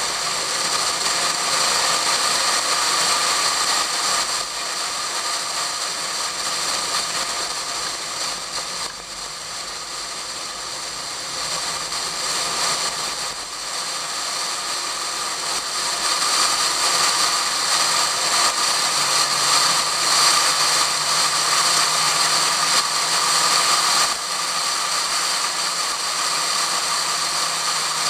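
Loud wind noise buffeting a camera sealed in a waterproof case on the outside of a Pontiac Fiero at track speed. A faint, steady engine note comes in about two-thirds of the way through and rises slightly.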